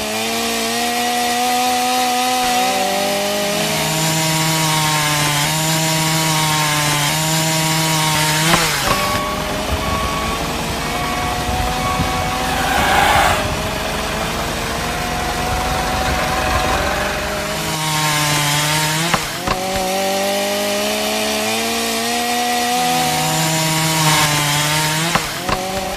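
Miniature circular saw blade on a toy tractor spinning with a motor whine and cutting through thin dry sticks; the whine shifts and glides in pitch as the blade bites into the wood, with a brief rasp of blade on wood partway through.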